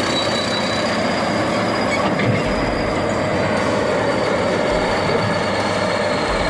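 Heavy machinery working along a railway: a steady, loud metallic clatter and rumble with a continuous high-pitched squeal from steel running gear.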